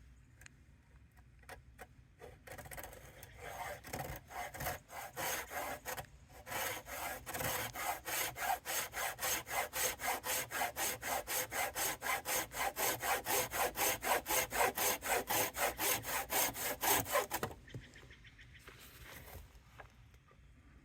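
Hand saw improvised from a broken bandsaw blade, sawing with back-and-forth strokes. A few slow strokes start about two seconds in, then they become fast and even, and they stop abruptly near the end.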